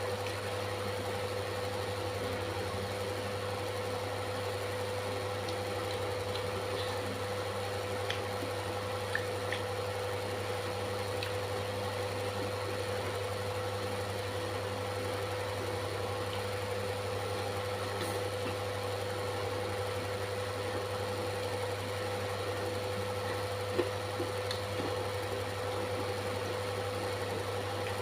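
A steady machine-like hum with a low drone and a higher tone held steady throughout, broken only by a few faint clicks.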